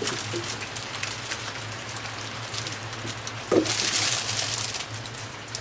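Steady rain falling, with many small drip ticks. A louder rustle lasting about a second comes in about three and a half seconds in as a bag of grapes is handled.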